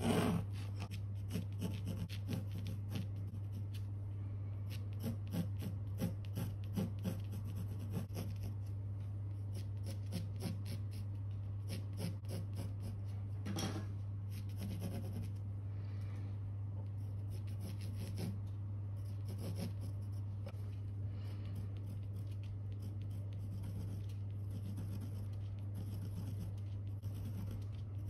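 Graphite pencil scratching on canvas in quick short strokes that come in uneven bursts, over a steady low hum.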